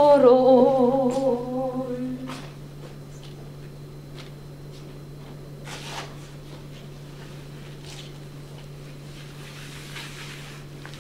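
A single voice singing a long, wavering held note that fades out about two seconds in. After it, only a steady low hum remains, with a few faint knocks and rustles of a body moving on a tiled floor.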